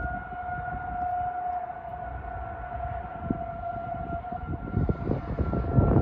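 Outdoor tornado warning siren (civil defense siren) sounding a steady tone, sounded as part of a test tornado drill. Under it runs a gusty low rumble that grows louder near the end.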